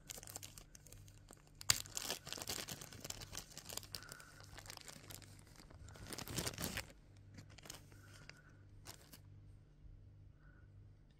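Thin clear plastic bag crinkling and rustling as it is pulled open by hand and a button badge is taken out, with a sharp snap a couple of seconds in. The crinkling is loudest about six seconds in, then dies to a few short rustles.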